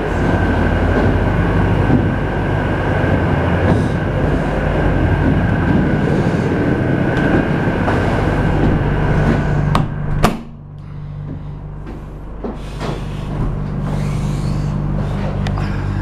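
Evaporator fans and refrigeration unit of a running 40-foot refrigerated container (Sanyo STD 21S1) giving a loud, steady whir with a steady whine and hum, the unit pulling the box down to about −9 °C. About ten seconds in, a sharp knock as the container door is shut, and the sound drops suddenly to a quieter, lower hum of the unit.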